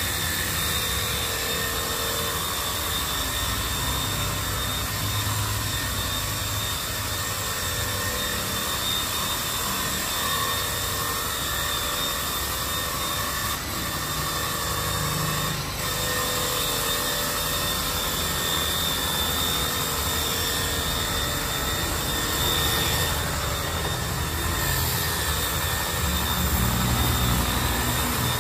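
Makita DHW180 cordless pressure washer running steadily: a constant motor and pump whine with high steady tones over a hiss, the low end swelling slightly near the end.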